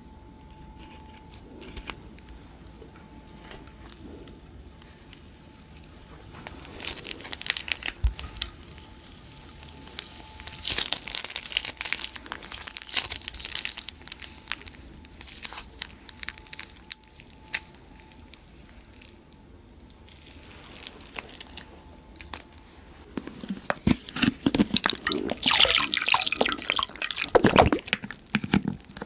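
Glossy slime being squeezed and worked, making sticky, wet clicks and small pops in irregular clusters, denser and louder near the end.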